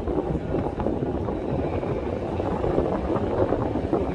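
Wind buffeting a smartphone microphone from the upper deck of a moving double-decker heritage tram, a steady fluttering rumble with the tram's running noise underneath.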